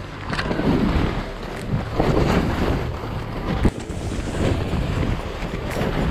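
Skis swishing through fresh powder snow on a steep descent, with wind buffeting the microphone; the rushing rises and falls with each turn. One sharp knock a little past halfway.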